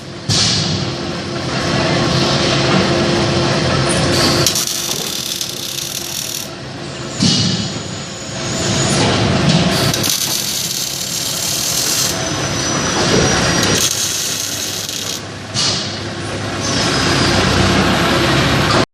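Factory-floor noise from a water-heater welding production line: steady machinery and tool noise that changes abruptly every few seconds, with brief swells in level about 7 and 15 seconds in.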